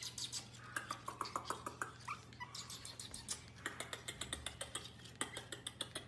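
Pomeranian puppies giving short, high whimpers and squeaks, mostly in the first half, over a run of quick clicks and taps from their movements.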